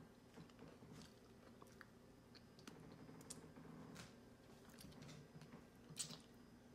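Near silence with faint small clicks and soft taps of blueberries being set by hand onto a soft custard dessert on a china plate, one sharper click about six seconds in.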